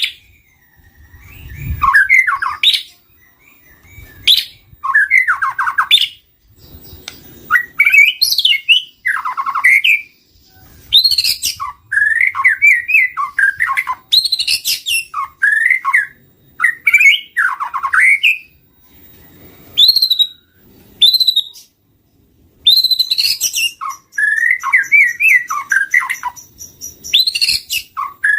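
White-rumped shama singing loudly: rapid phrases of varied whistles and chattering notes, each lasting a second or two, separated by short pauses.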